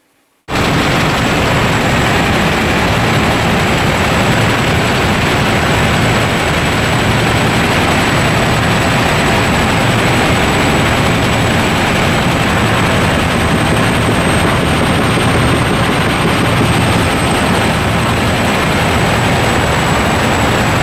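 Helicopter in flight, heard from inside the cabin: loud steady rotor and engine noise with a thin high whine. It starts abruptly about half a second in.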